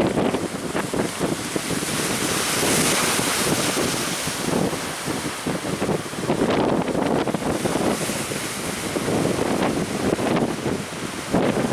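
Strong gusting wind buffeting the microphone over the rush of surf breaking at a river mouth, with a wave washing in from about two to four seconds in.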